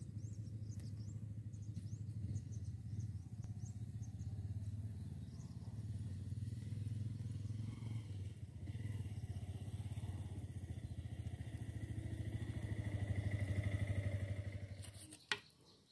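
A small engine running steadily, swelling louder near the end and then dropping away, with faint bird chirps in the first few seconds.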